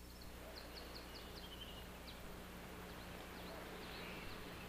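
Faint birdsong: a quick run of about five short, high, falling chirps about half a second in, then a few scattered chirps, over a steady background hiss and low hum.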